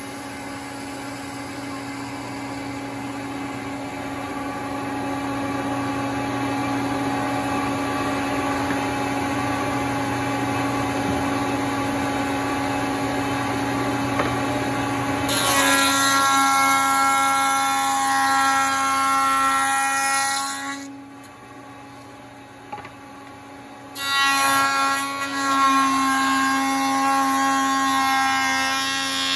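Spindle shaper with a raised-panel cutter running steadily, then two loud passes as wood is fed through the cutter, each with a high ringing whine, about halfway and near the end, with the motor humming alone for a few seconds between them.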